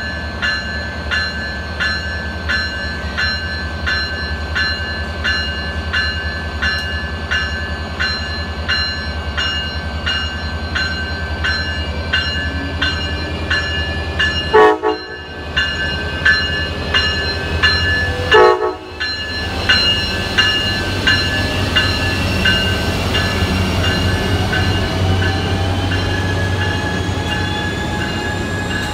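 Siemens Charger diesel locomotive at a station: its bell rings steadily, about twice a second, over the low running of the diesel engine. Two short horn blasts sound about four seconds apart, the signal that the train is about to move off. The bell then stops and the engine's pitch rises slowly as the train pulls away.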